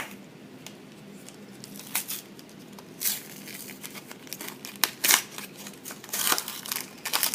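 Foil wrapper of a Pokémon trading card booster pack being torn open and crinkled by hand: irregular crackling rips and rustles, a few louder ones about three, five and six seconds in.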